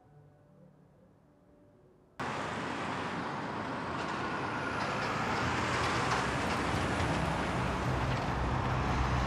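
Heavy road traffic, lorries and cars on a highway: a dense rush of engine and tyre noise that cuts in abruptly about two seconds in after near silence. The low engine rumble grows heavier towards the end.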